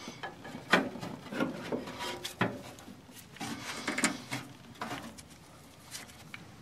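Irregular metal clinks and knocks with some scraping as the hydraulic flow control valve cylinder head assembly is worked into place on the tractor and its bolts are started with a socket extension.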